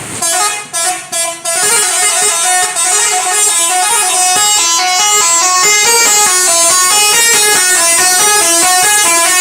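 Telolet horn of a Bulan Jaya bus playing a fast tune of shifting notes: a few short blasts, then a continuous melody.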